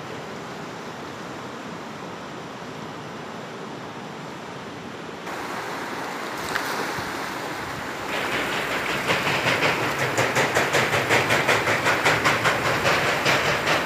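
Fast river water rushing, stepping up louder twice partway through and pulsing rapidly and regularly in the later seconds.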